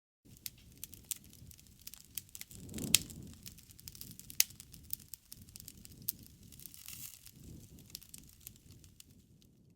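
Wood campfire crackling: frequent sharp pops and snaps over a low rush of flame. The fire swells about three seconds in, with the loudest pop.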